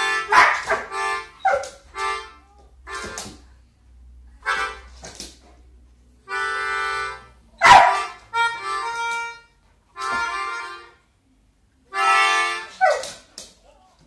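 A pitbull howling and yipping along to music: short, sliding cries come between and over held chords about a second long on a reedy instrument. A sharp cry about eight seconds in is the loudest.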